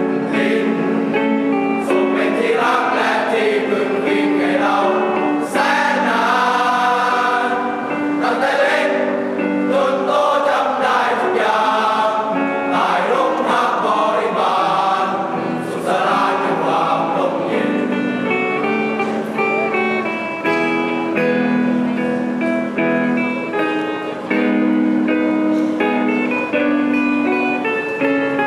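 Choir singing a song with guitar accompaniment; about two-thirds of the way through, the singing gives way to an instrumental passage of plucked guitar and held notes.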